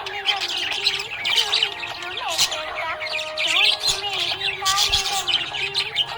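A flock of budgerigars chirping and warbling continuously in quick, overlapping chirps and squawks.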